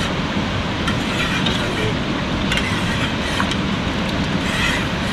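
A fast-flowing river rushing steadily, with a few light clinks of a ladle against a metal cooking pot.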